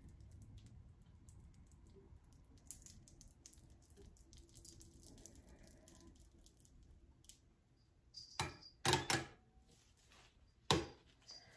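Multi-wire soap cutter being pressed down through a loaf of soap: faint, soft crackling and scraping as the wires pass through the bar, then a few sharp knocks about eight to nine seconds in and one more near the end.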